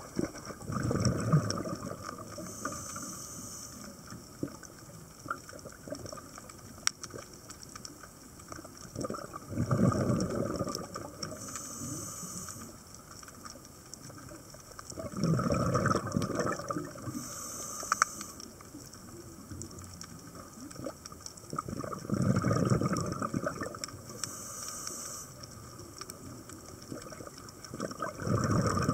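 Scuba diver breathing through a regulator underwater: a bubbling rush of exhaled air about every six seconds, five times, each followed by a short high hiss of inhalation through the regulator.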